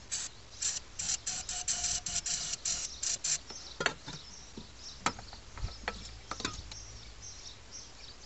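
Aerosol carb and choke cleaner sprayed into the idle air control valve housing in a rapid run of about a dozen short hissing squirts, followed by three separate light clicks.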